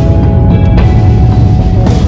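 Background music with a heavy low beat and a bright crash about once a second.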